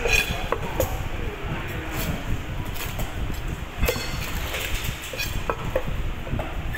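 Irregular knocks and scrapes of a knife against a wooden log chopping block as a titan triggerfish's tough skin is cut and pulled away, over a steady low background rumble.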